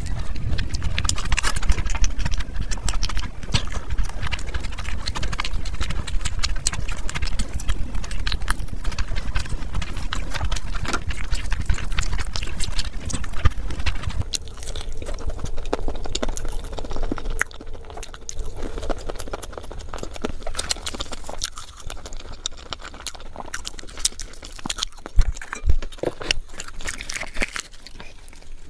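Close-miked chewing and lip-smacking of a big mouthful of rice and curry, a dense run of wet clicks and squelches, with fingers mashing rice on the plate; it grows softer about halfway through.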